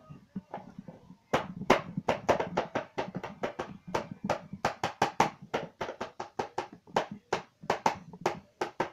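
Drumming: a quick run of sharp strikes, about four a second, starting about a second in.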